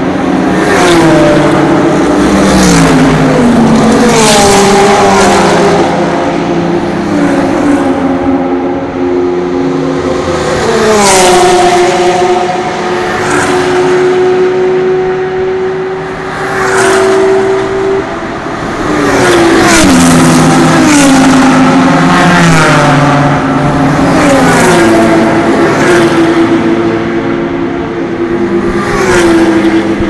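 Race cars passing one after another at full throttle, about a dozen in all. Each car's engine note swells as it goes by and then drops in pitch, and some step down through the gears.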